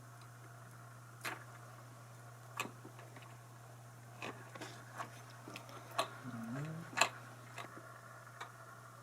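Scattered light clicks and taps of electric guitar parts and hardware being handled, about a dozen over several seconds, with a brief squeak just after the middle, over a steady low hum.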